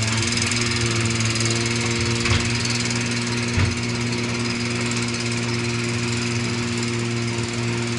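The engine and hydraulics of a machine working a crane arm with a grab, running steadily with a low hum. Two short knocks stand out, about two seconds in and again about a second later.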